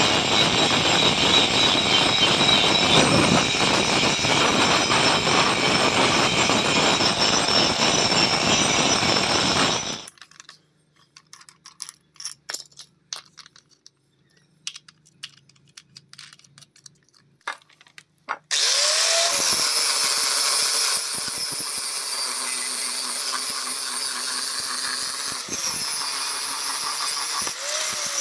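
Angle grinder grinding the edge of an iron meat cleaver blade; it stops about ten seconds in. Scattered clicks and taps follow while the disc is handled. About eight seconds later the grinder runs again with a flap disc sanding the blade edge, its pitch dipping briefly a few times.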